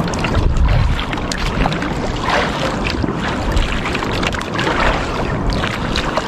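Wind buffeting the microphone over a choppy sea, with water slapping and splashing against a small boat's hull. The splashes come in surges, about two and a half seconds in and again near the end.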